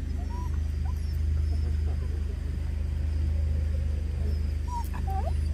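Jindo dogs giving short, high whines now and then, most clearly about half a second in and again near the end, over a steady low hum.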